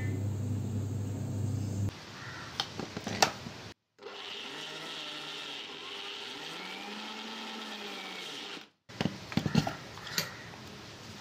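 Electric mixer grinder grinding cashews toward a paste in short pulses. The motor runs for about two seconds and stops, the steel jar and lid clatter, then it runs again steadily for about five seconds before stopping, followed by a few more clicks of the jar being handled.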